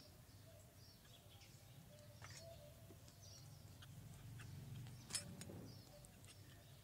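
Faint outdoor quiet with small birds chirping now and then, and a single sharp click about five seconds in.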